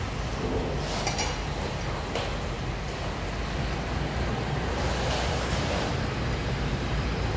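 Steady tyre-shop workshop noise with a low rumble, with a few light metal clinks from tools, two of them about one and two seconds in.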